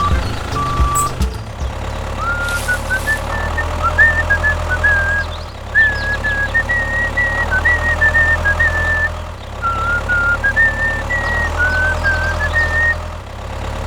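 A simple high-pitched melody of short stepping notes, played in phrases over a steady low drone that drops out with each break between phrases.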